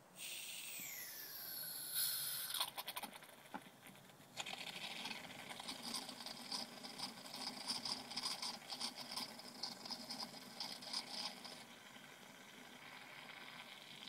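Oil and recovered refrigerant blowing out of a recovery cylinder's hose through a brass fitting into an oil drain pan. It starts as a sudden hiss with a falling whistle, then spits and sputters for several seconds as the oil comes through, settling to a quieter, steadier hiss near the end. The oil was carried out of a seized compressor along with the refrigerant.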